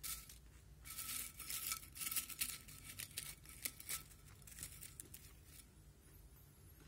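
Crisp packet crinkling in irregular bursts, loudest about two seconds in and dying away after about five and a half seconds.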